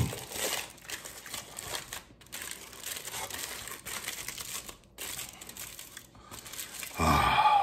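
Irregular crinkling and rustling of a food wrapper handled by hand as a burrito is unwrapped, with scattered small crackles. A short voice sound comes near the end.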